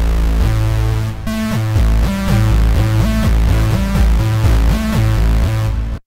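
Tone2 Gladiator software synthesizer playing a lead preset: a melodic phrase of sustained notes that glide smoothly from one pitch to the next over a heavy low end. It cuts off just before the end.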